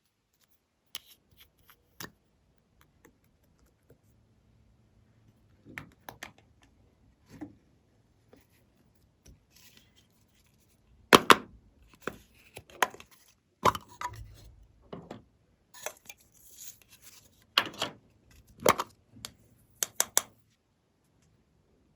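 Glossy slime being worked by hand, giving irregular sharp wet clicks and pops. They are sparse at first and come thicker and louder from about halfway through.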